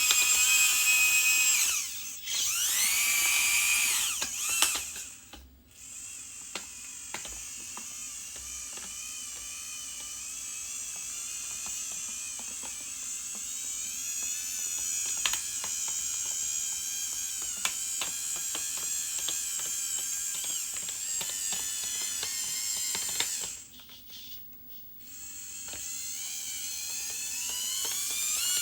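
Small electric motors and gear drives of radio-controlled construction models whining, the pitch rising and falling as they speed up and slow down, with many light clicks. The whine stops briefly about two seconds in, again at about five seconds, and for a second or so near the end.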